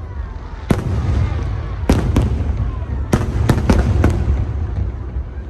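Aerial fireworks bursting in a show: about seven sharp bangs in irregular succession over a continuous low rumble.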